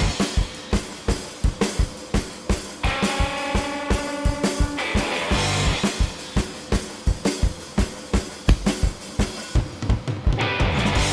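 Rock music: a drum break of steady kick and snare hits, with a held note for about two seconds near the middle, and the full band coming back in near the end.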